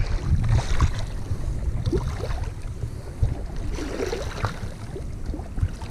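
Wind buffeting the microphone in an uneven low rumble, with small waves lapping on a rocky shore.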